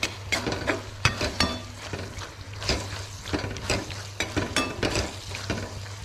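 A spatula stirring a thick, nearly cooked onion and chili masala in a metal kadhai, with irregular scrapes and knocks against the pan, some ringing briefly, over the masala sizzling.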